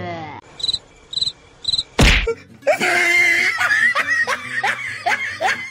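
Comedy sound effects edited over the picture: three short buzzes, a loud burst about two seconds in, then a quick run of falling chirps.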